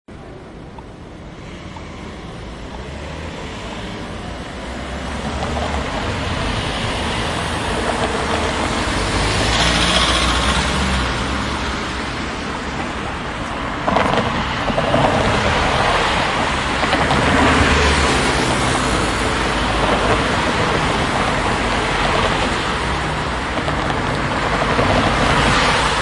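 Road traffic: a steady stream of cars driving past, fading in over the first few seconds. Individual cars swell and ease as they pass, with a sudden louder pass about 14 seconds in.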